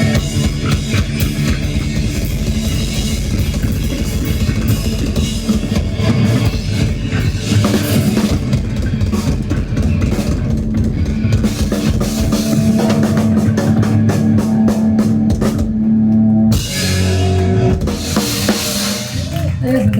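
Rock band playing an instrumental passage with busy drum kit, bass drum, bass and guitar. About three-quarters of the way through, the dense drumming stops and held notes ring on.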